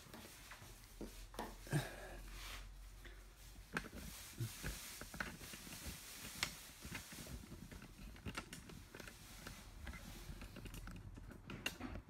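Faint handling noise: scattered small clicks and a few light knocks as the subwoofer cabinet is moved into place on the table.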